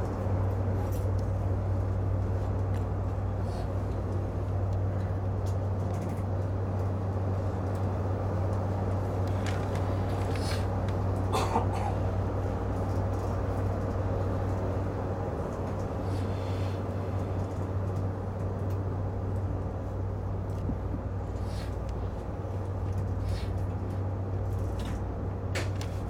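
Steady low hum of a stationary E131-series electric train while it stands at the platform, with a few faint clicks.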